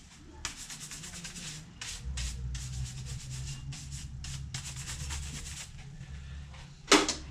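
A brush scrubbing dust and gunk out of the inside of a Technics SL-1200 MK2 turntable's base in quick, repeated strokes, with one sharp knock near the end.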